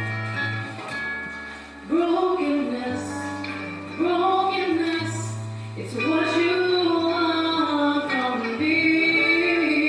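Gospel music: singing voices over held low accompaniment notes, with new sung phrases coming in about every two seconds.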